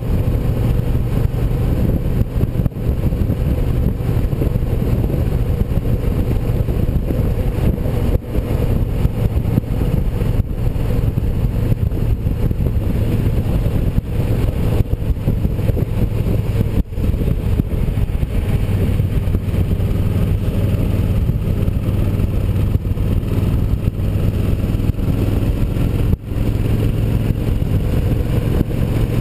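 Cruiser motorcycle's engine running at a steady cruising speed, heard from the rider's seat with rushing wind. The engine note drops slightly about two-thirds of the way through, and the sound dips briefly three times.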